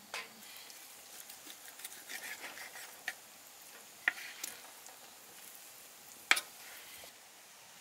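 Kitchen knife slicing through raw pork and fat on a wooden cutting board: soft wet cutting sounds, broken by a few sharp knocks of the blade striking the board, the loudest about six seconds in.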